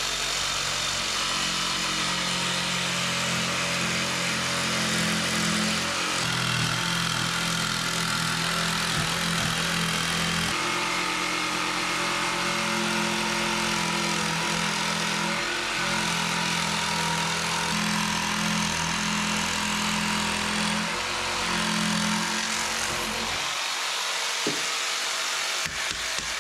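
Electric jigsaw cutting a laminate floorboard: a steady, loud saw noise whose motor pitch shifts several times as the load changes, stopping a few seconds before the end.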